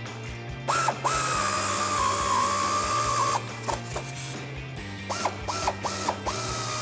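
Pneumatic air ratchet running: one long whine of about two and a half seconds, then several short bursts started and stopped by the trigger, over background music.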